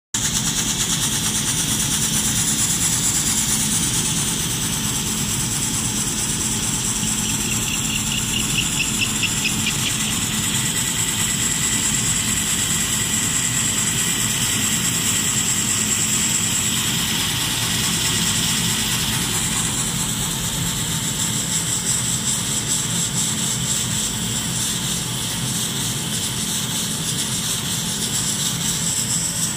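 Laser engraving machine running while it engraves wood: a steady mechanical hum and hiss, with thin high whines from the moving head.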